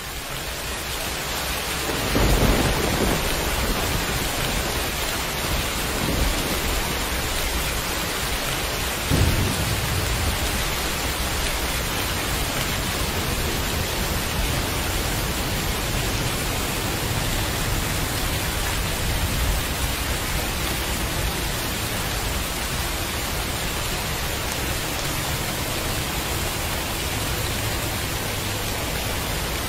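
Heavy rain falling steadily, fading in over the first couple of seconds. Thunder rumbles over it: a loud one about two seconds in and more around six and nine seconds.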